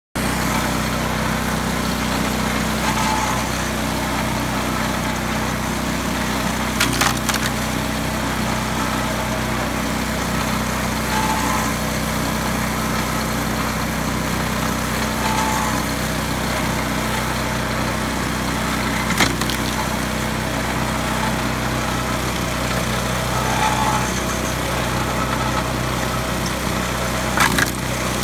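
Homemade pitman-arm log splitter running, its small engine humming steadily, with sharp cracks about three times as firewood rounds split on the wedge.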